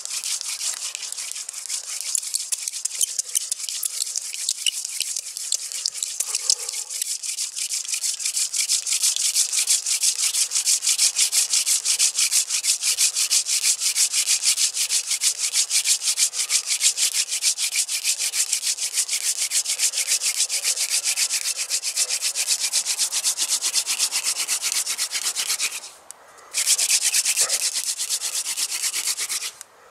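Hand-drill friction fire: a wooden spindle spun fast between the palms, grinding in the hearth board's notch with a steady, rapid rubbing, to build an ember. It grows louder about eight seconds in and breaks off briefly twice near the end.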